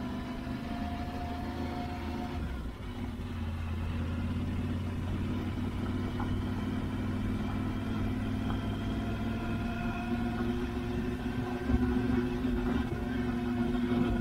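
Yamaha Ténéré 700's parallel-twin engine running steadily with small shifts in pitch, getting a little louder about twelve seconds in.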